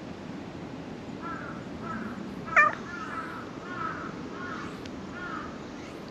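Black stray cat giving a string of short meows while being petted, with one louder, sharp meow about two and a half seconds in.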